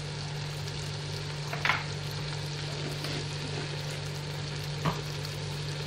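Fish pieces in a spiced tomato masala frying and sizzling in a pot over a steady low hum, with two brief knocks, a spoon or ladle against the pot, about a second and a half in and near the end.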